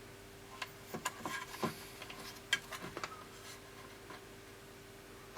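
Light, irregular clicks and taps as a small circuit board and its housing are handled and turned over on the workbench, over a faint steady hum.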